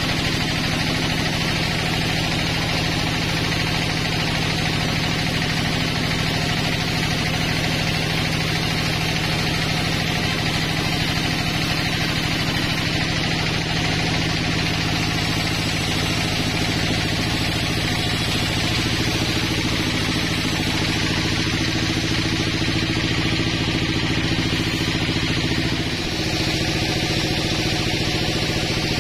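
HAITA vertical band sawmill running steadily as its blade cuts lengthwise through a log: a constant machine drone under the hiss of the saw in the wood. About 26 seconds in, the sound dips briefly and the drone shifts.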